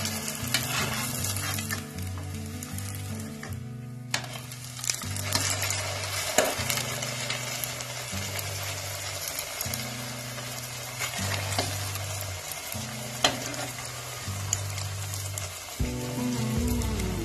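Hot oil sizzling steadily as a stuffed mini Moghlai paratha deep-fries in a kadai, with a few sharp clicks in between.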